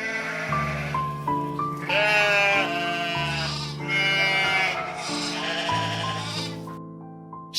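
Background music, with about four wavering animal calls of roughly a second each laid over it.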